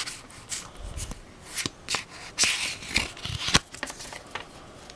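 Pokémon trading cards and their foil booster pack being handled: an irregular run of rustles, card slides and sharp clicks, with a longer crinkle in the middle.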